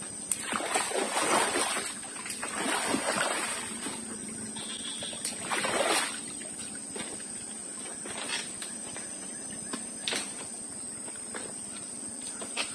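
Footsteps splashing and sloshing through shallow floodwater on a half-submerged log walkway, in three bursts over the first six seconds, then a few light knocks.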